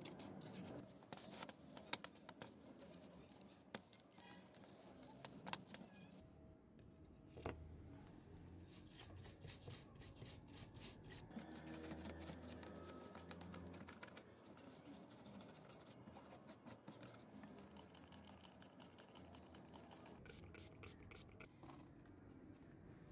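Faint, repeated scratching and rubbing of a small stiff brush scrubbing grime off a DVD player's loader mechanism and then a circuit board, with scattered light clicks and a few sharper knocks.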